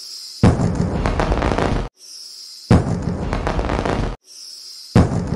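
Looped firework sound effect: a short whistle followed by a loud crackling burst that cuts off sharply, repeating about every two and a quarter seconds, three bursts in all.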